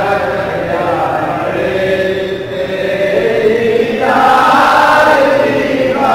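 A group of men's voices chanting together in long held notes, the melody rising to a higher pitch about four seconds in.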